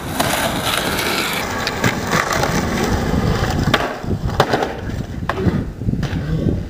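Skateboard wheels rolling on concrete, with several sharp clacks of the wooden deck and tail hitting the ground as a trick is popped; the loudest clack comes about four and a half seconds in.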